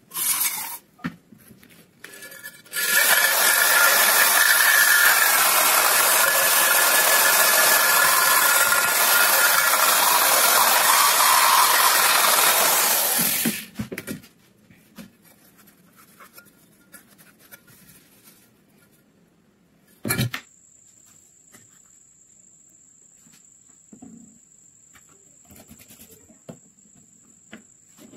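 Electric drill spinning a small wire cup brush against a metal rifle part, scouring its surface clean. A steady harsh scrubbing starts a few seconds in, runs for about eleven seconds and stops suddenly. A single knock comes later.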